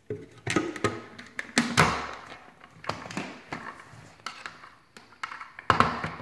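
Hard plastic clacks and knocks as a lid is fitted onto a blender pitcher and the top-mounted motor unit is set on top: a scatter of taps with a few louder thunks, the loudest near the end. The blender is not running.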